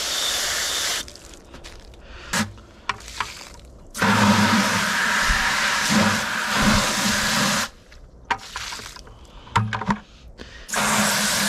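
Garden hose spraying water in bursts, switched on and off: briefly at the start, then a longer spray of about four seconds in the middle, and again near the end, rinsing paint out of brushes. A few short clicks sound between the sprays.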